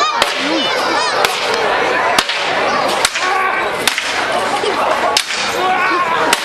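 Sharp clacks of sword blows striking shields and blades in a staged knight fight, about seven hits at irregular intervals, over the chatter of a crowd.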